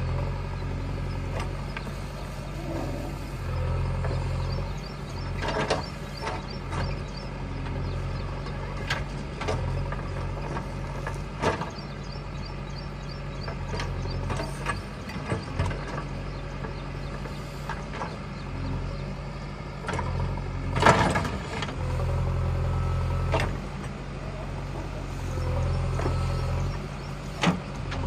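JCB 3DX backhoe loader's diesel engine running steadily and rising in level now and then as the backhoe digs, with scattered knocks and clanks from the bucket and soil; the loudest clank comes about two-thirds of the way through.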